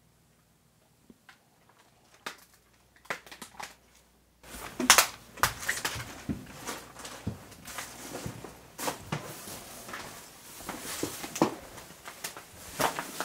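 Footsteps crunching and snapping over debris on the floor: a quick run of irregular crunches that starts abruptly about four seconds in, after a near-silent start with a few faint clicks.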